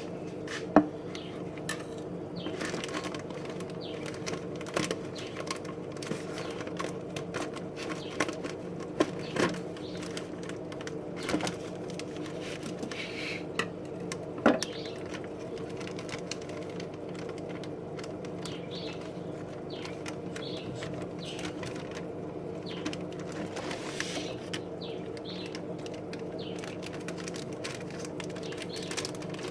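Shrimp shipping bags and gear being handled: scattered clicks, taps and plastic rustles over a steady low hum, with a sharp knock about a second in and a few more around the middle.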